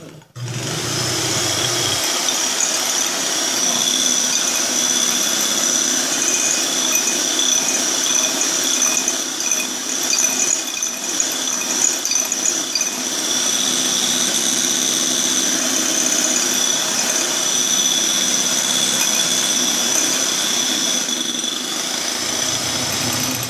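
Electric hand mixer running steadily with a high whine, its beaters whisking stiff egg whites and a yolk in a glass bowl. It is switched on just after the start and off near the end.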